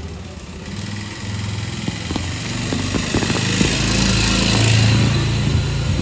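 A motorbike engine passes close by, getting louder from about two seconds in to its loudest near the end, then easing off, over the steady hiss of heavy rain.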